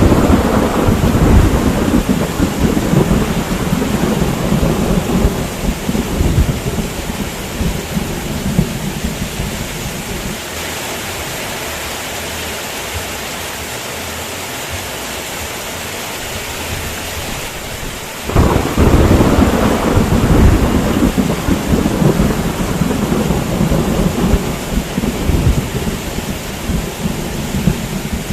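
Heavy rain falling steadily, with two long rolls of thunder. The first rumbles from the start and fades by about ten seconds in; the second breaks sharply about eighteen seconds in and rumbles on.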